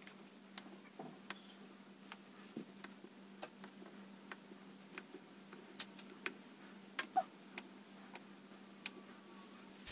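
Kitchen knife cutting boiled, peeled potatoes into wedges on a plastic cutting board: faint, irregular clicks as the blade goes through and taps the board. A faint steady hum sits under it.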